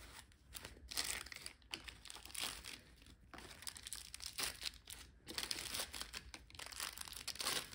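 Clear plastic packaging crinkling and rustling in short, irregular crackles as a wrapped action figure is handled and lifted out of its box tray.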